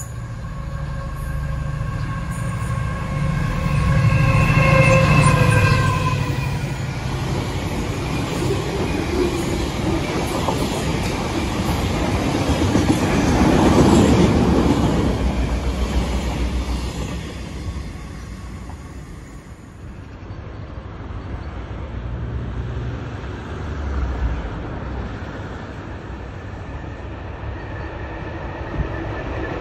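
An engineering train of wagons loaded with rails approaches and sounds its horn, one blast of about three seconds that drops slightly in pitch, then clatters and rumbles past at speed, loudest about halfway through. After a sudden cut, a Colas Rail Class 70 diesel locomotive is heard more faintly as it approaches, its engine humming ahead of a train of hopper wagons.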